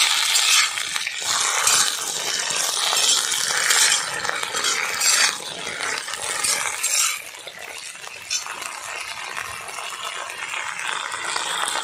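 Chopped okra sizzling in hot mustard oil in a black iron kadai, stirred with a flat metal spatula that scrapes against the pan. The sizzle eases a little about seven seconds in.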